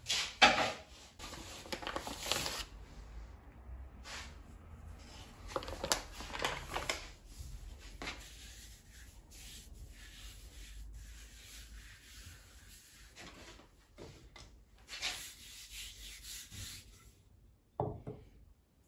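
Hands working bread dough on a wooden board: irregular rubbing and scraping strokes with a few soft knocks.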